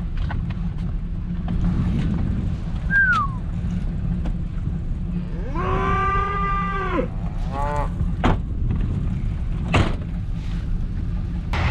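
Cattle bawling: one long call about six seconds in that rises and then holds for over a second, with a shorter call just after it. A steady low rumble runs underneath, with a few scattered knocks.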